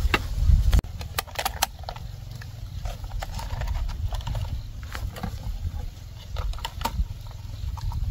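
Corn cobs being worked against a bamboo tube to strip off the kernels, giving scattered, irregular clicks and crackles over a low rumble.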